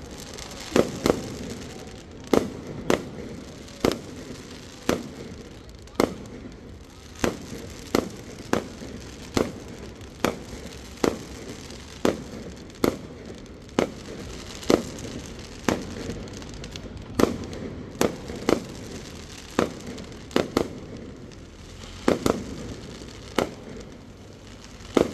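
Aerial fireworks shells bursting in steady succession, a sharp bang every half second to a second, each trailing off in a smear, with crackling between.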